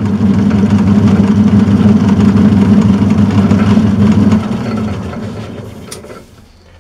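Turnell & Odell metalworking lathe running with a steady motor hum, then switched off about four and a half seconds in and winding down to a stop, with a click near the end.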